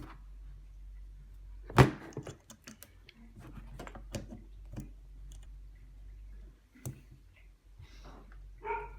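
Parts and tools being handled on a workbench: scattered light clicks and taps, with one loud knock about two seconds in, over a low steady hum.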